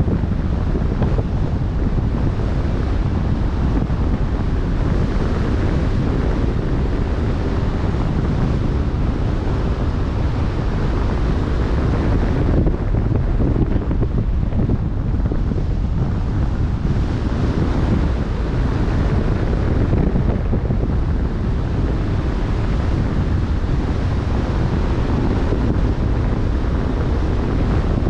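Steady wind buffeting the microphone over the wash of open-sea waves, a heavy, low noise that swells and eases slightly.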